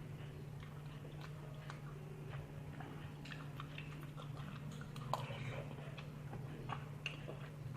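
A person chewing and eating tteokbokki and ramen, with scattered small mouth and utensil clicks, over a steady low hum.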